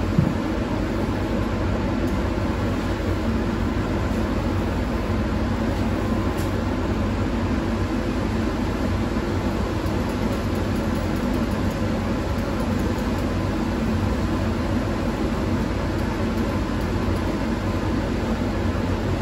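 Steady rushing air noise of a powder coating booth: the exhaust fan and the powder gun's air flow running without change. A short knock comes right at the start.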